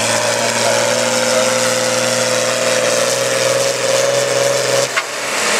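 John Deere 4020's six-cylinder diesel engine running hard under load while pulling a weight-transfer sled, a steady strained drone whose pitch creeps up slightly. About five seconds in the engine sound drops off sharply with a click as the pull comes to a stop.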